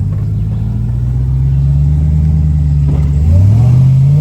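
Full-size pickup truck's engine pulling at low speed, its pitch creeping up, then revving up sharply about three seconds in as the truck strains against the obstacle it is stuck on.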